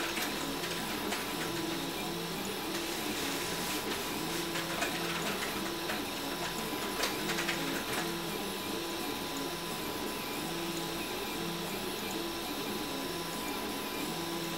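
RepRap Huxley 3D printer printing, its stepper motors whining in short tones that change pitch every fraction of a second as the print head moves back and forth along each layer. A thin steady high whine runs underneath, and there are a few faint clicks.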